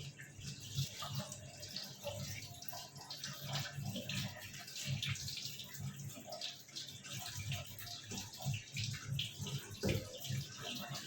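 Water running and splashing irregularly as boiled pork pieces are rinsed.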